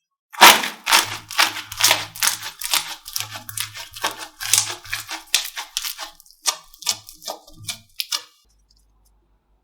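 Slime being squeezed and poked by hand, giving a fast, irregular run of clicks and pops that stops about a second before the end.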